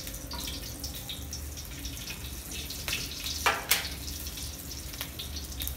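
Hot ghee hissing quietly in a brass wok on a gas burner, over a low steady hum, with two sharp clicks close together about three and a half seconds in.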